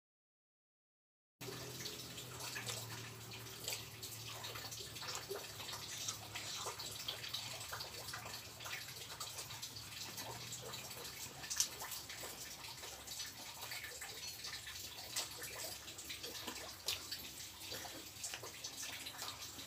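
Close-miked eating by hand: chewing, with small wet mouth clicks and crackles as fried catfish and rice are eaten, over a steady hiss of rain and a low hum. The first second and a half is dead silent.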